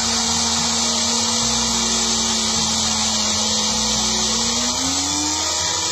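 Magic Bullet personal blender running at full speed, emulsifying milk and sunflower oil into homemade cream. Its motor whine holds steady, then rises in pitch about five seconds in.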